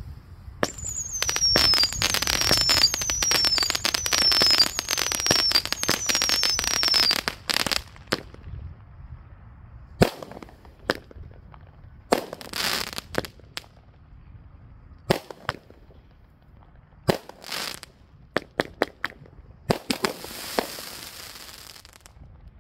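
Brothers Pyrotechnics 'Bling Bling' 200 g consumer firework cake firing: dense crackling with about seven short whistles, each falling in pitch, for roughly seven seconds. Then scattered single pops and a few short bursts of crackle as the cake finishes.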